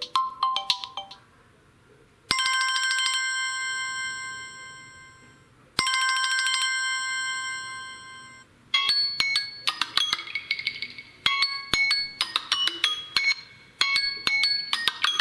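Samsung Galaxy M01 stock ringtones played one after another. The end of a melodic tune is followed by a ringtone of two long ringing tones, about three and a half seconds apart, each fading slowly. Near nine seconds in a new ringtone starts, a quick bright tune of short notes.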